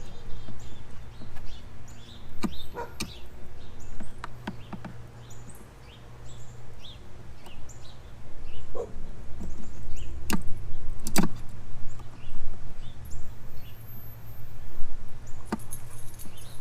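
Scattered clicks and knocks of hands working an LED bulb and its wire retaining clips into a motorcycle headlight housing, over a steady low hum.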